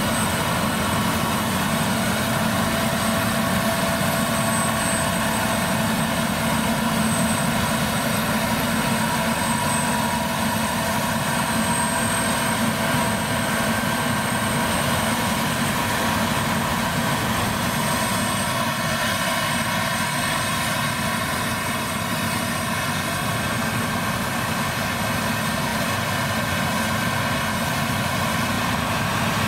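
Claas Lexion 770 TT combine harvester running steadily while harvesting rapeseed: a constant engine and threshing-machinery drone with a thin, steady high whine above it.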